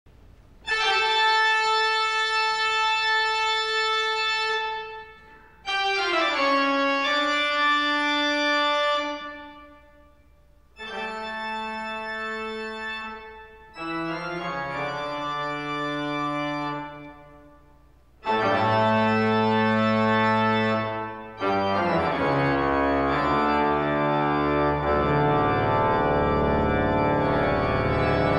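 Organ music: long held chords in phrases with short pauses between them, then a busier, unbroken passage about three-quarters of the way in.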